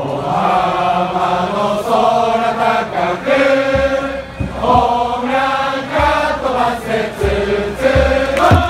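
A large crowd of baseball fans singing a cheering song in unison, in melodic phrases of about a second each, with a few low thumps.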